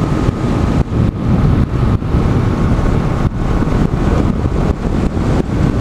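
Wind buffeting the microphone on a moving motorcycle, with the Honda CG 150's single-cylinder engine running steadily underneath.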